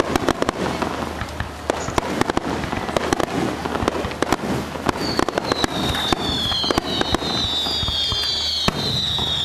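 Star mine fireworks barrage: a dense, rapid run of sharp bangs and crackles. From about halfway in, several high whistles sound over the bangs, each falling slowly in pitch.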